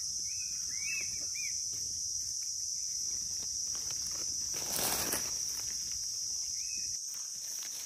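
Steady high-pitched insect chorus from crickets or cicadas. A few short chirps come in the first second and a half and once more near the end, and a brief rustling noise, the loudest moment, comes about five seconds in.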